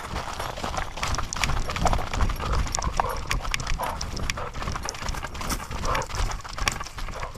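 A pit bull's paws pounding and crunching through dry fallen leaves at a run, heard from a camera strapped to its back, with rhythmic footfalls and constant low jostling of the mount.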